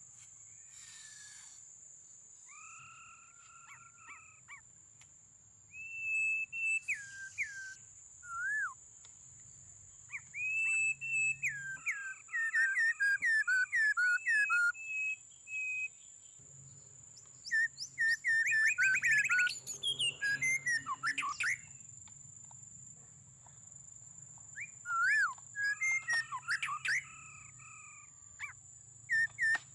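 A bird calling in bursts of quick whistled chirps that slide and jump in pitch, with a thin steady high-pitched whine underneath.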